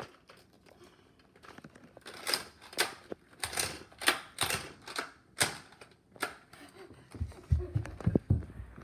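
Plastic clacks of a toy foam-dart blaster being worked by hand, a string of sharp clicks about half a second apart. Near the end come a few heavy, dull thumps.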